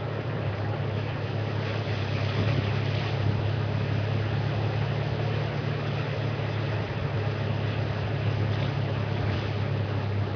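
Game-drive vehicle's engine running at a steady low hum while driving, with a constant rush of wind and road noise.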